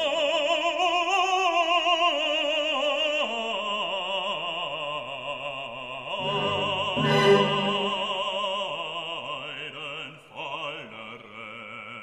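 Background music: a solo operatic singing voice holding long notes with wide vibrato, over classical accompaniment.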